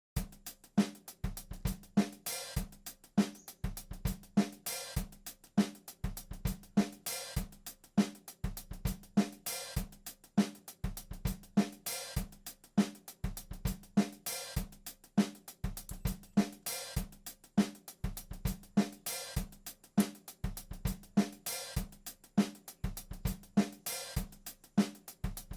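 Background music with a steady drum-kit beat (kick drum, snare and hi-hat), with a louder cymbal-like accent about every two and a half seconds, starting abruptly out of silence.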